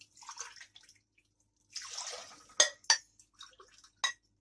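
Water poured from a glass into a stainless steel pot of sugar, splashing in short pours, with a few sharp ticks in the second half.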